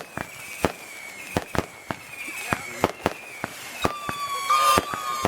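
Fireworks going off: a rapid, irregular string of sharp bangs and cracks. A high whistle from a whistling firework fades in the first moment, and another, lower whistle starts about four seconds in.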